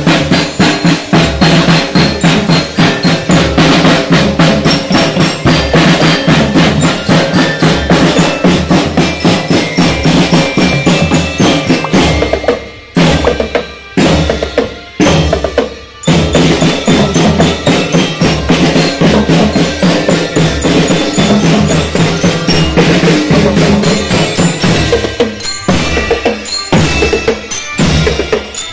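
Marching drum band playing: snare drums and marching bass drums beating a steady march rhythm under the ringing melody of bell lyres (glockenspiel). About halfway through the drumming breaks into a few short stops before picking up again, and there are more brief stops near the end.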